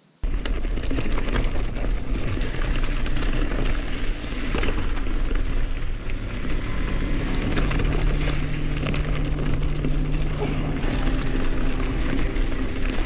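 Background music with held bass notes laid over mountain-bike riding noise: wind on the camera and the tyres and bike rattling along a dirt trail.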